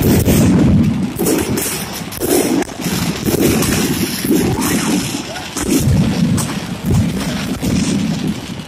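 Aerial firework shells bursting in quick succession: a run of booms, about one or two a second, with sharp crackling from the glittering stars in between.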